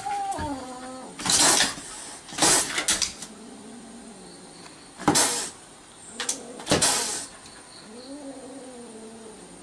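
A cat hissing in four sharp bursts, with a low, wavering growl between the hisses, as it faces off with a dog at a car window.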